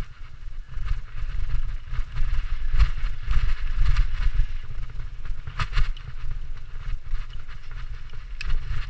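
Mountain bike riding fast down a dirt singletrack, heard from a camera carried on the bike or rider. Wind rumbles on the microphone under a steady crunch of tyres on dirt, with clattering rattles and knocks as the bike hits bumps.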